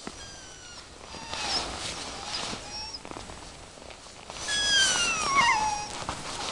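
Curly Coated Retriever puppy whining: a few short, high whines, then about four and a half seconds in a louder, longer whine that falls in pitch.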